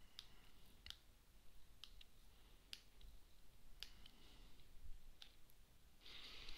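Faint, irregular clicks of a stylus tip tapping on a tablet's glass screen while writing, with a short scratchy pen stroke about six seconds in.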